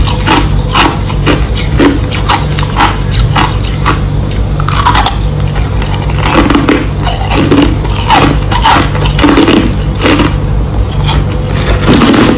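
Crushed ice being chewed close to the microphone: loud, rapid, irregular crunches, several a second, as the ice cracks between the teeth.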